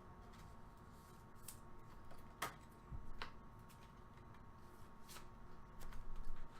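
Faint handling of trading cards: a few light clicks and rustles, about four sharp ticks spread across the few seconds.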